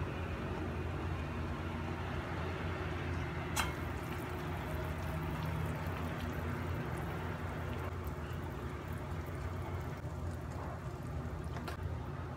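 Water simmering in a steel pot on the stove: a steady bubbling hiss over a low rumble. There is a single sharp click about three and a half seconds in, and light clicks near the end.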